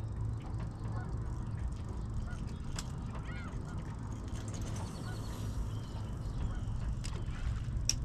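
Wind rumbling on the microphone over open water, with scattered light clicks and knocks of fishing rods and reels being handled in their holders. A few short bird calls come about three seconds in.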